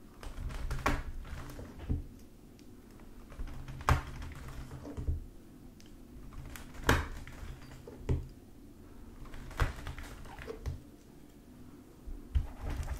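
A knife blade pressed into and lifted out of thick slime, making sharp sticky clicks and pops about once every second or two.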